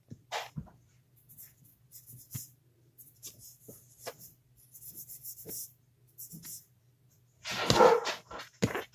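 Fingertips rolling a thin coil of polymer clay against a wooden board: soft, intermittent rubbing and scraping, with a louder, longer scrape near the end and a low steady hum underneath.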